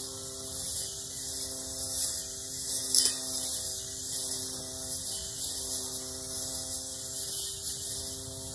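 Battery-powered weed eater with a metal blade running, its electric motor giving a steady whine with a hiss from the cutting, and one sharp tick about three seconds in.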